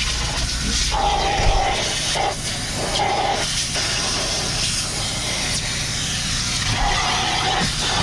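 Shop vacuum running, its nozzle sucking along a truck cab's door sill and floor with a steady rushing hiss; a whistle comes and goes three times.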